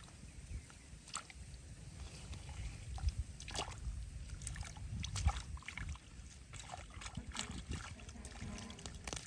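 Shallow water sloshing and splashing, with irregular sharper splashes every second or two.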